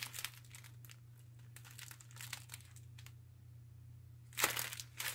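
Clear plastic packaging of a diamond painting kit crinkling as it is handled and turned over, faint at first, with a louder crinkle about four and a half seconds in.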